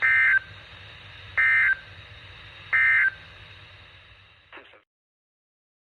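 Three short bursts of Emergency Alert System SAME data tones, the end-of-message code that closes the warning, over a steady weather-radio hiss. There is a brief crackle at about four and a half seconds, then the audio cuts to silence.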